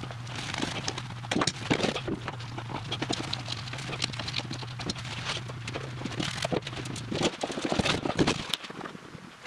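Irregular clicks, knocks and scraping of metal and plastic as spin-on oil and fuel filters are handled and swapped on a diesel truck engine. Under them runs a steady low hum that stops about seven seconds in.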